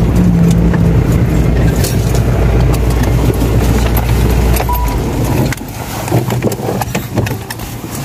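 Car engine and tyre rumble heard from inside the cabin while driving on a dirt track. About five and a half seconds in, the low rumble drops away, leaving irregular clicks and rattles.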